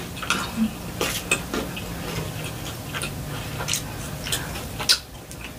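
Close-miked chewing of crispy Popeyes fried food: irregular sharp crunches and mouth clicks, roughly one every half second to a second.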